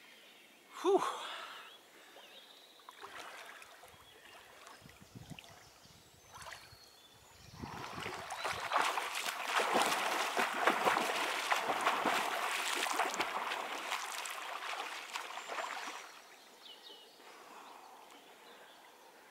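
Splashing of a person swimming in a river, a dense run of churning splashes that starts about a third of the way in, lasts about eight seconds and then dies away.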